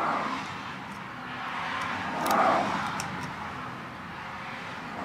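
Swells of passing road-vehicle noise, the loudest about two and a half seconds in, with a few faint light clicks.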